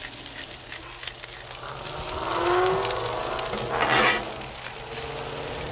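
Sliced potatoes, bacon and egg in a vinegar-and-flour sauce sizzling on a Blackstone steel flat-top griddle. A metal spatula scrapes across the griddle as the food is worked, loudest about four seconds in.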